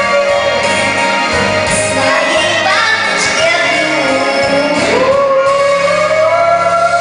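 Female solo voice singing a blues song over an instrumental accompaniment with a steady bass line, holding long notes; about five seconds in she slides up into a long sustained note.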